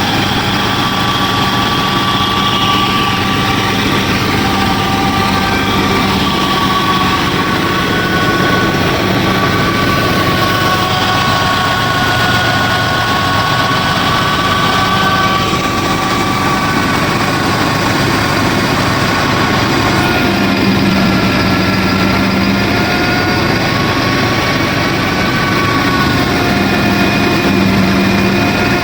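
Small motors of a DIY miniature combine harvester and thresher running steadily, with a whine that wavers a little in pitch over a dense mechanical whir.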